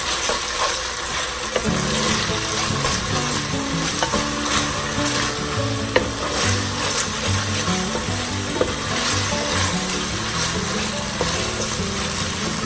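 Schezwan and tomato sauce sizzling as it fries in a pan and is stirred, with a few sharp clicks of the spoon against the pan. The sauce is being fried for a few minutes to cook off its raw smell.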